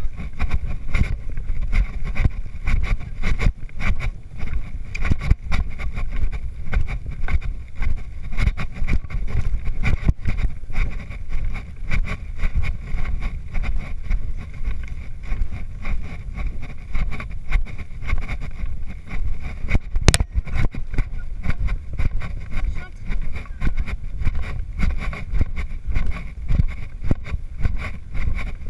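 Wind rumbling over a rider-worn camera's microphone as a horse canters across a sand arena, with a quick uneven pulsing of hooves and jostling under it. One sharp knock about two-thirds of the way through.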